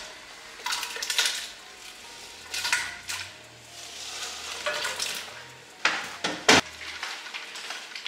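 Chopped vegetables scraped off a plastic cutting board into a stainless stock pot of broth, in several short swishes. A couple of sharp knocks come a little past six seconds.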